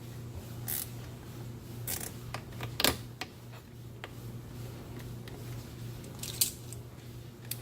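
Zip ties being fed and pulled tight by hand: scattered short clicks and brief ratcheting rasps, loudest just before three seconds in and again about six seconds in, over a steady low hum.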